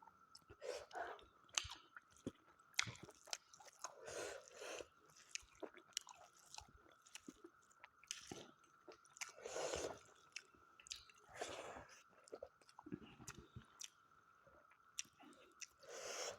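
Close-up mouth sounds of someone eating smoked mutton curry: chewing with scattered wet clicks and lip smacks, broken by several breathy exhales. The exhales come while eating food he calls spicy.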